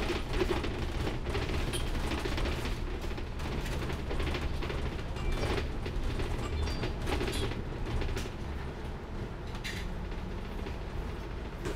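Inside a moving double-decker bus: a steady low rumble from the engine and road, with the body and fittings creaking and rattling in short irregular clicks and squeaks.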